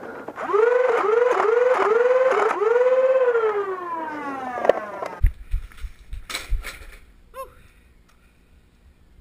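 A siren-like wail: five quick rising-and-falling whoops, then one long tone that slides slowly down in pitch and stops about five seconds in. A few low thumps follow.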